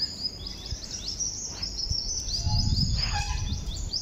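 Birds chirping: a quick, continuous run of short, high, falling notes. A low rustling swell about two and a half seconds in is the loudest part.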